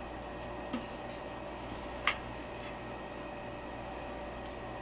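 Steady low room hum with a few light taps, the sharpest about two seconds in.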